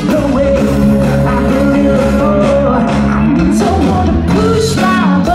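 A live band on stage plays a pop-rock song with singing, guitars, drums and horns, heard loud from among the audience.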